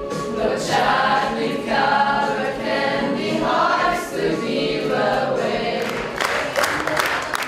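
A group of young mixed voices singing together, with audience applause breaking in about six seconds in.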